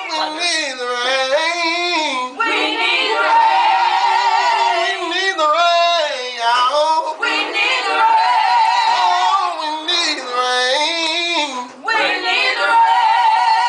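Women singing a gospel song together, mostly long held notes with a wavering vibrato, broken by a few short pauses for breath.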